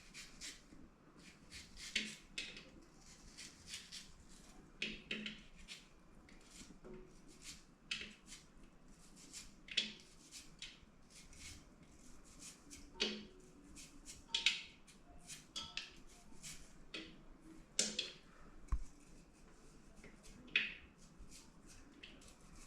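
Kitchen knife cutting vegetables into small pieces, a string of irregular sharp clicks and scrapes every second or two.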